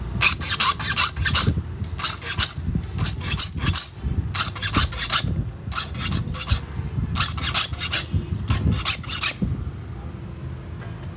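Small metal file rasping across the steel teeth of a hand saw being sharpened: quick strokes, about four or five a second, in short runs with brief pauses between, stopping near the end.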